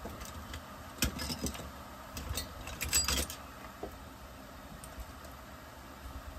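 Small metal tools and parts clinking and rattling against a Husqvarna 357 XP chainsaw's engine as it is worked on by hand at the bench, in two short clusters about one and three seconds in, with a few lighter clicks between.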